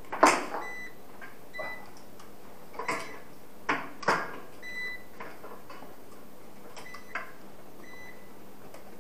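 Sharp knocks and clatters of tools, cables and power strips being handled on the floor, the loudest just after the start, with short high electronic beeps at irregular intervals every second or two.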